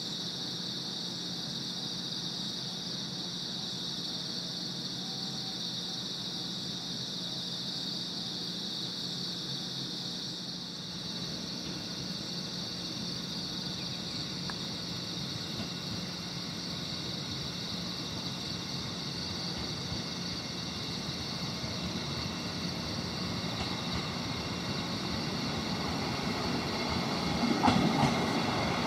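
JR Kyushu 415 series electric train approaching and pulling into the platform. Its running noise swells over the last several seconds, with wheels clacking over rail joints near the end, above the steady chirping of night insects.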